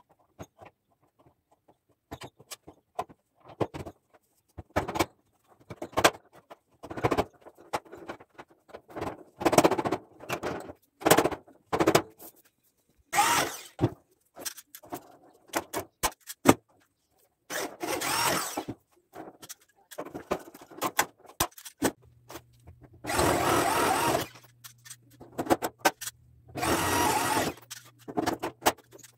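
A cloth rag rubbing along the steel tubes of a gate frame in short scrubbing strokes, among scattered clicks and knocks of handling. A low steady hum joins about two-thirds of the way through.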